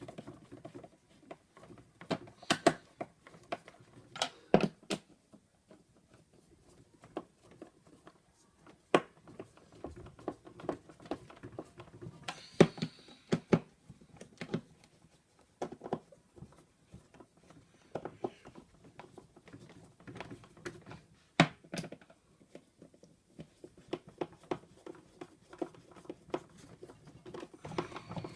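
Irregular clicks, taps and knocks of a Numatic vacuum motor unit's parts being handled and fitted back together, with a few sharper knocks.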